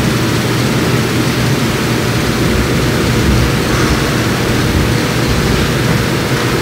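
Steady rumbling hiss with no distinct events.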